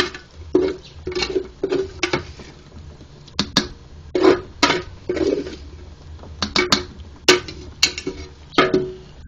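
Metal cookware clattering: about a dozen irregular sharp knocks of a utensil against a metal pot, each with a short ringing tone.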